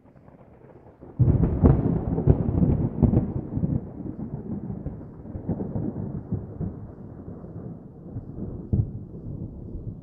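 Thunder: a faint low rumble breaks about a second in into a loud crack with crackling, then rolls on in a long rumble that slowly fades, with another sharp crack near the end.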